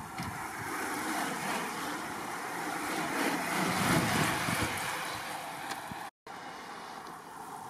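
Steady rushing of wind on the microphone mixed with racing bicycles' tyres hissing on the wet road as riders pass, swelling about four seconds in. The sound drops out completely for an instant just after six seconds.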